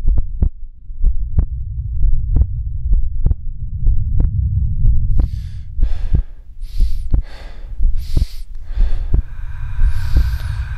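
A slow, heartbeat-like pulse of low thumps, a couple a second, over a deep rumbling hum. Airy whooshing swells come in about halfway, roughly one a second.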